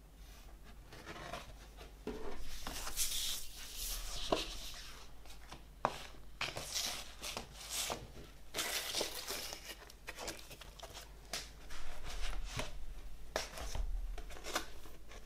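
A large folded paper insert is handled and unfolded on a wooden tabletop, giving irregular rustling and crinkling of paper with a few sharp clicks and taps.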